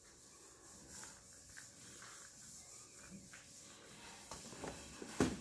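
Faint rustling and soft light taps as flour is dusted by hand over a silicone pastry mat, with one sharper knock near the end.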